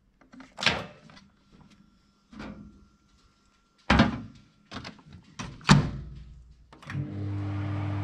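Microwave oven door opened, a mug set inside and the door shut, with several knocks and clicks and button presses. About a second before the end the Whirlpool microwave starts up with a steady mains hum from its transformer and fan. It keeps running without blowing its fuse now that the faulty transformer has been replaced.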